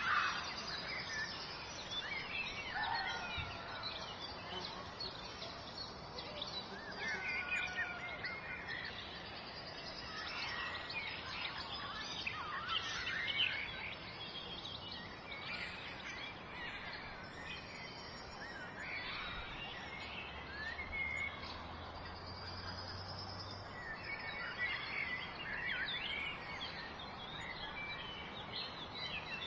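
Many small birds chirping and singing, overlapping calls throughout, over a steady background hiss.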